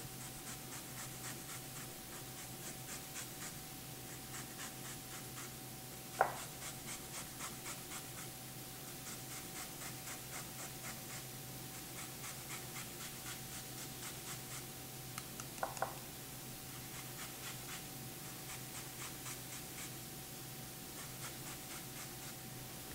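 A lemon being zested: quick, faint scraping strokes of the rind against a zester, a few a second, with a couple of light knocks in between.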